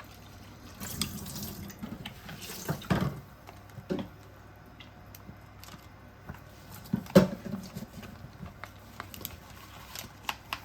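Kitchen tap running in short spells, with light clicks and clatter of dishes and a sharp knock about seven seconds in.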